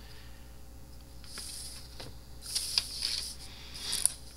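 Scratchy rustling of paper being handled, in three short bursts about a second apart.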